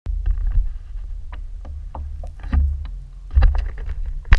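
Wind buffeting the microphone of a kayak-mounted action camera, a low uneven rumble that swells and dips, with scattered small clicks and knocks. A sharp knock near the end as the camera is handled.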